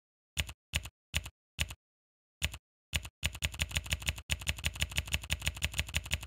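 Facemoji keyboard app's 'A' keyboard key-press sound effect, a short click played for each tapped key: five separate taps, then from about three seconds in a quick run of taps at about five a second.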